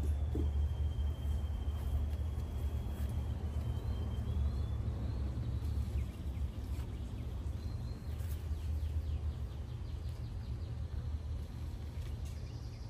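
Outdoor background noise: a steady low rumble, with a faint thin high whine for the first five seconds or so.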